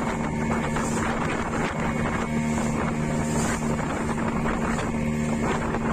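Boat engine running steadily, a constant low drone with wind noise on the microphone.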